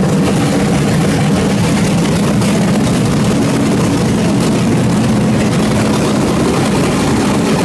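Engine running steadily on a test stand at a constant speed, with no revving, its low, even drone carrying a steady hiss over it.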